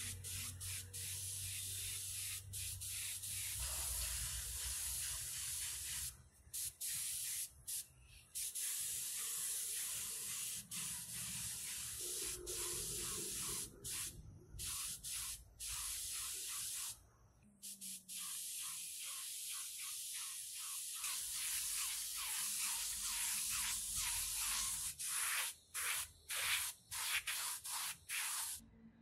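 Gravity-feed spray gun spraying paint: a steady hiss of air and paint that stops briefly many times as the trigger is let off, with quicker on-off bursts near the end.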